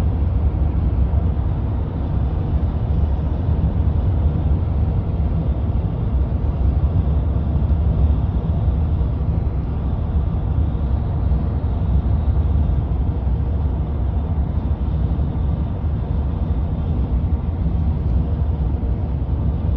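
Steady low rumble of a car driving at highway speed, heard from inside the cabin: tyre and engine noise with no change in pace.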